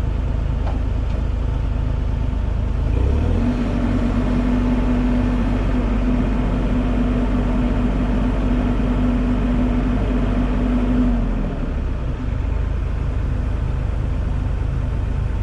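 Diesel engine of a piece of heavy equipment running steadily. About three seconds in its note steps up and holds with a steady hum, then drops back about twelve seconds in.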